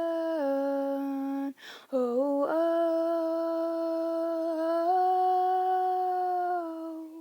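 A woman's unaccompanied voice humming long, wordless held notes. First a sustained note that steps down, then a breath, then a long note that slides up into place, steps higher about five seconds in, settles back and fades out near the end.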